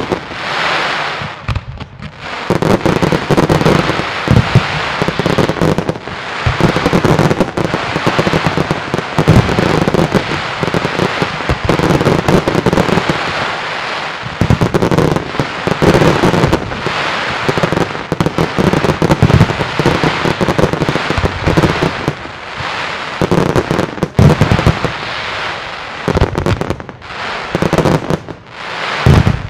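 Fireworks display: aerial shells bursting one after another with hardly a break, so the reports run together into a continuous rumble and crackle. There is a short lull about a second in.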